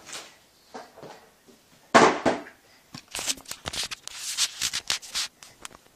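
Handling noise from a compact photo camera being picked up and gripped: a loud knock about two seconds in, then a series of scraping, rustling rubs against the microphone.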